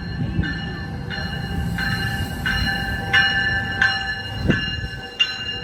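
Arriving passenger train rumbling along the track while its bell rings steadily, about three strokes every two seconds.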